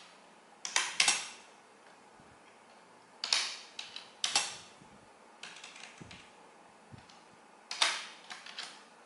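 Computer keyboard being typed on, keystrokes coming in short irregular clusters with pauses between them.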